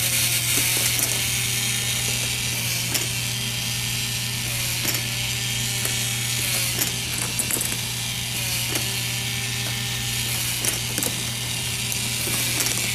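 K'nex ball machine running: plastic gears and lift mechanisms clicking and rattling, with ratchet-like ticks over a steady low hum and a pattern that repeats about every two seconds.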